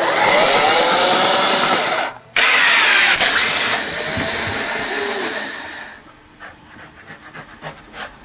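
A small motor whirring loudly in two runs, the first about two seconds long and rising in pitch as it spins up, the second about three and a half seconds long, stopping about six seconds in.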